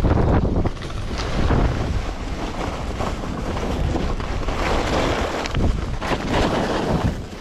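Wind buffeting the microphone: a heavy, rumbling rush that rises and falls in gusts, easing about a second in and building again toward the middle.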